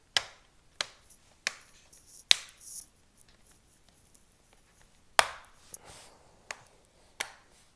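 Plastic clips of a laptop's snap-on cover clicking into place as it is pressed on, about eight sharp clicks at uneven intervals, two of them louder, about two and five seconds in.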